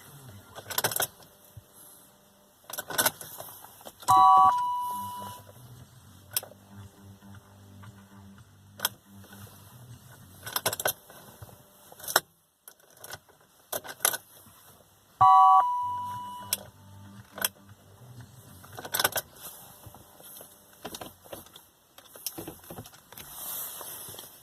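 Ignition key of a BMW E39 528i being turned repeatedly, with keys jingling and sharp clicks. An electronic dashboard chime sounds twice, about 4 seconds in and again about 15 seconds in, each ringing for about a second. The engine does not crank into life: the intermittent hot-engine no-start, where a key turn gives only a short click that the owner takes for the starter solenoid.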